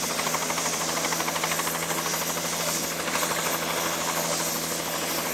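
Helicopter idling on the ground, a steady engine hiss and hum with a rapid even beat from the turning rotor.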